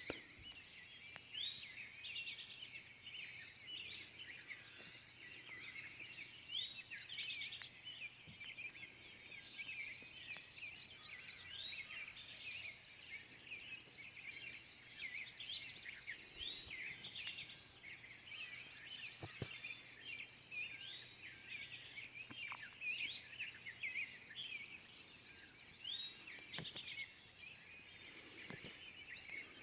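Dawn chorus of many songbirds, faint and continuous: overlapping chirps, whistled phrases and rapid trills from several birds at once, with a few faint knocks.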